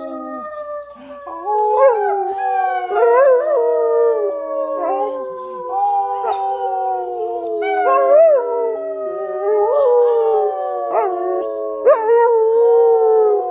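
Young German Shepherd howling: long drawn-out howls that slide slowly down in pitch, one after another, broken by short yelping rises. It is her reaction to her owner pretending to be hurt.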